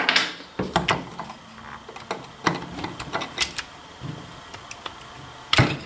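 Irregular small metallic clicks and knocks of rifle parts being handled: a Savage Model 64 .22 semi-auto has its barrel retaining piece popped out and its barrel worked free of the receiver. The sharpest knock comes near the end.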